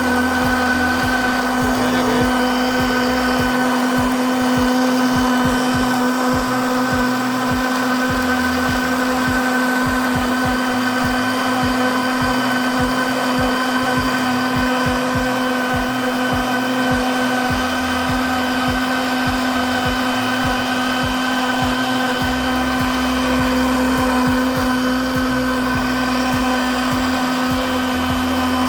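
Miyako BL 101 PL electric blender running continuously while it juices chopped starfruit. It makes a steady, unwavering motor whine at one constant pitch.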